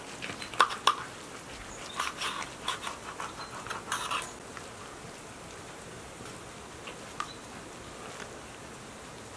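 Knife, fork and slotted spoon scraping and tapping against grilled whole fish and the iron sadj as the charred skin is opened and the flesh lifted: a flurry of scrapes and clicks in the first half, then a faint steady hiss with one more tap.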